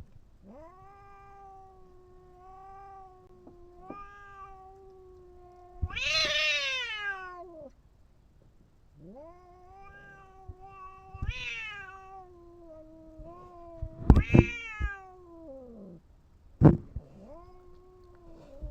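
A cat yowling in long, drawn-out moans held at a steady pitch for several seconds at a time. Louder, higher wails rise and fall away between them, the loudest about six seconds in. Two sharp knocks come in the second half.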